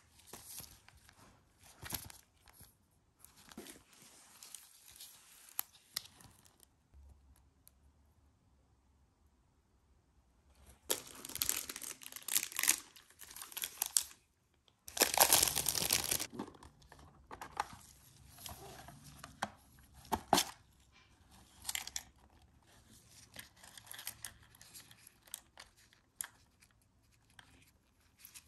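Plastic packaging being crinkled and torn open by gloved hands: soft rustling and a few clicks, with two loud stretches of crackling tearing in the middle.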